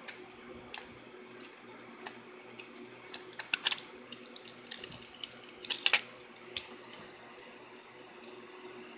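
Small plastic clicks and rattles as a Trackmaster toy engine is taken apart: a screwdriver working the chassis screw, then the plastic body pulled off the motor chassis. Two louder bursts of clatter come in the middle, about two seconds apart, over a faint steady hum.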